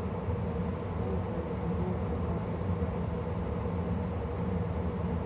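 A 2013 Carrier gas furnace running steadily, a constant even hum with no change in level.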